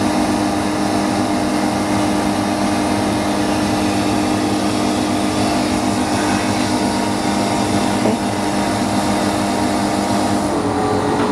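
Steady electric machine hum with a low drone, with a light knock about eight seconds in.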